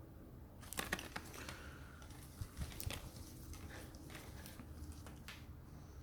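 Packaging being handled during an unboxing: faint rustling and crinkling in short bursts, about a second in, again around two and a half seconds, and near five seconds.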